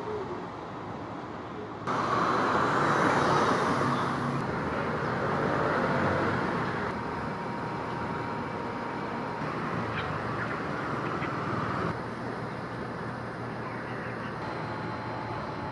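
City street ambience: a steady hum of road traffic. Its level jumps up abruptly about two seconds in and drops abruptly near the end as the takes change.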